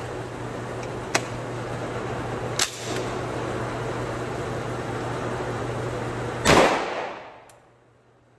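A single loud shot from a B&T APC10 about six and a half seconds in, fired with the folding brace closed over the ejection port, a setup that gives ejection malfunctions. Two faint sharp clicks come earlier over a steady background hiss, which fades out after the shot.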